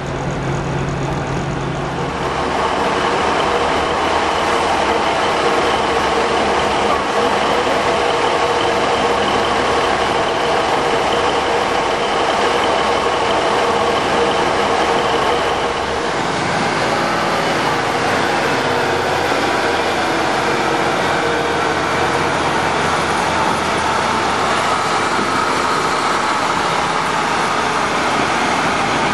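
Diesel multiple unit engines running steadily at a station platform, with a low hum and a steady mid-pitched tone. About halfway through the sound shifts, and near the end a train moves past.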